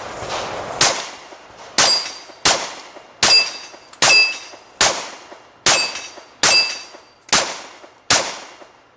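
Glock 30 .45 ACP subcompact pistol fired ten times at a steady pace of a little under a second per shot. Hits on steel plates ring after many of the shots.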